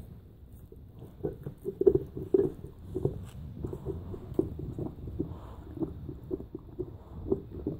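Large dog gnawing on a bone chew held between its paws: irregular chewing clicks and scrapes, several a second, loudest about two seconds in.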